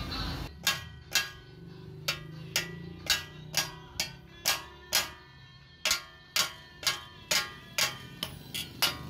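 Hammer blows on the steel blade of a hand-forged phawra (hoe) as it is seated on its wooden handle: about two sharp metallic strikes a second, each ringing briefly, with two short pauses between runs of blows.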